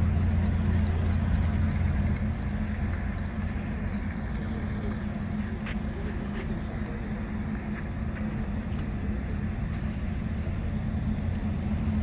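Steady low outdoor rumble with a faint hum, louder for the first two seconds, and a few faint clicks.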